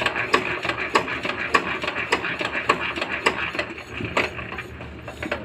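Yanmar single-cylinder diesel engine running just after a hand-crank start, with a regular knocking beat.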